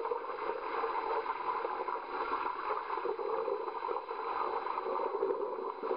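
Pool water churned and splashed by people doing deep-water aerobics: a steady wash of splashing.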